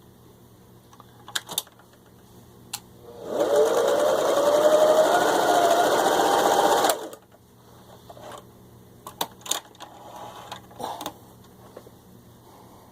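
Singer 353 Genie zigzag sewing machine stitching a multi-stitch pattern. The motor runs for about three and a half seconds, with a whine rising as it speeds up, then stops abruptly. A few sharp clicks come before and after the run.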